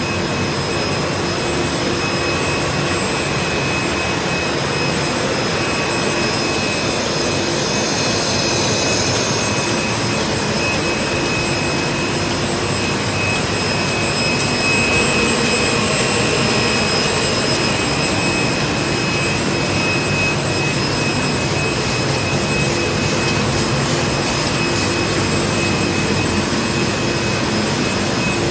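KBA Rapida 105 sheet-fed offset press running on impression: a loud, steady mechanical whir and rush of air with a faint high whine held over it.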